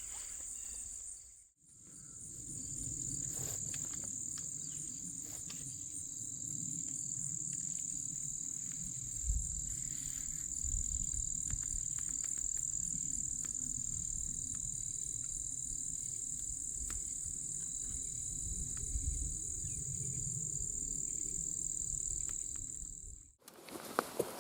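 Evening insect chorus of crickets or katydids: a steady, unbroken, high-pitched drone, with a low rumble beneath it.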